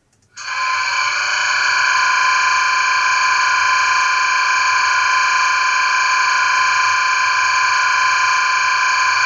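Sound decoder of a Märklin 39187 BR 218 H0 model diesel locomotive playing its air-compressor sound (function F12) through the model's small loudspeaker: a steady, buzzing tone that starts about half a second in and holds evenly.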